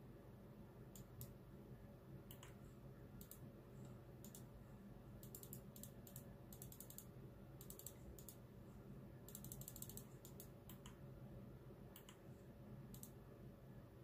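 Near silence: faint steady room hum with scattered faint, sharp clicks, several of them in quick runs of ticks near the middle.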